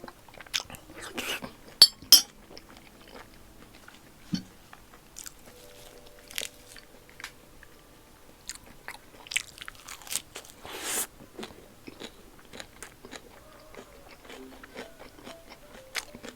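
Close-miked eating: a person chewing and biting food with many short crunchy crackles, two sharp loud bites about two seconds in and a longer crunching stretch about two-thirds of the way through.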